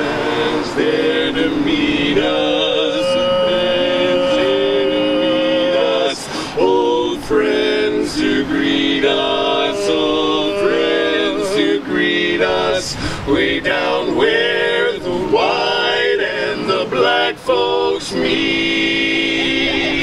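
Male barbershop quartet of tenor, lead, baritone and bass singing a cappella in four-part harmony, holding and moving through close chords.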